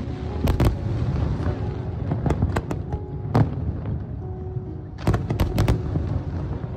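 Aerial fireworks shells bursting overhead: about a dozen sharp bangs in irregular clusters, thickest about half a second in and again around five seconds in, over a continuous low rumble.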